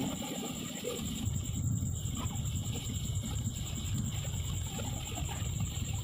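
Wind buffeting the microphone and road noise from riding along the road: an uneven low rumble, with a thin steady high-pitched whine over it.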